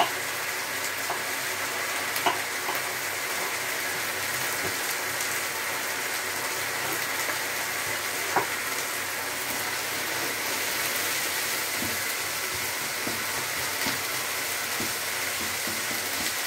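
Sliced peppers and onions sizzling steadily in a hot metal frying pan, with a few short knocks, the clearest about two seconds and eight seconds in.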